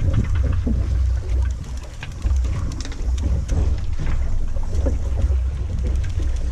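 Low rumble of wind buffeting the microphone on a fishing boat at sea, easing briefly about two seconds in, with scattered small knocks and splashes.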